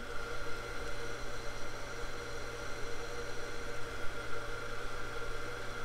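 Background room tone: a steady low hum with a faint even hiss, and no distinct event.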